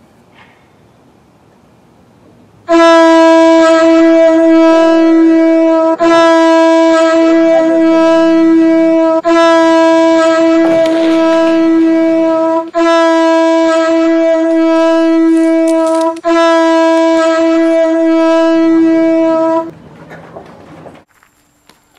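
Five long blasts of a loud horn on one steady pitch, each about three seconds with brief breaks between, starting a few seconds in.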